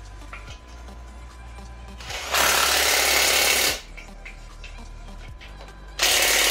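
Cordless impact wrench hammering bolts into the gearbox bellhousing in two bursts, the first about a second and a half long and the second about a second.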